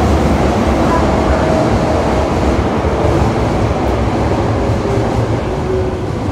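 Toei Asakusa Line 5300 series subway car running, heard from inside the car above its VVVF inverter. A steady rumble of wheels and running gear carries a few faint whining inverter and motor tones, each lower in pitch than the last.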